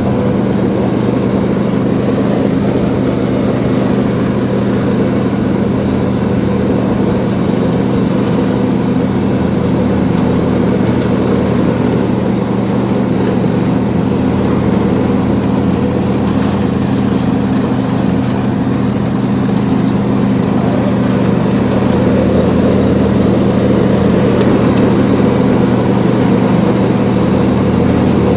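Riding lawn mower engine running steadily at constant speed while mowing, heard from the driver's seat, a little louder near the end.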